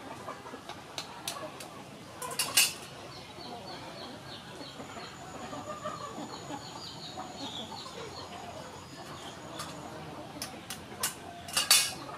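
Hens clucking in the background while boiled eggshells are cracked and peeled by hand, with scattered small clicks and two louder crackling bursts, one about two and a half seconds in and one near the end. A small bird chirps quickly and repeatedly in the middle.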